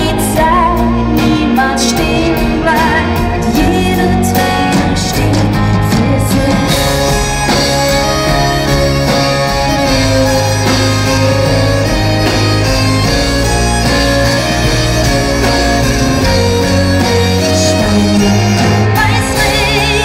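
Live band music: keyboards and drums playing a pop song, with a woman singing into a microphone at times.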